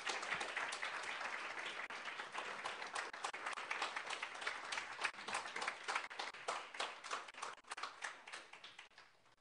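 Audience applauding: many hands clapping in a dense patter that thins out and dies away near the end.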